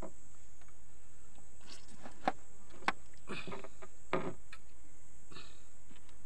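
Hands working a catfish free of a nylon gill net: short scuffs and rustles of net and fish, with two sharp clicks a little past two seconds and near three seconds in. A steady high-pitched insect drone runs underneath.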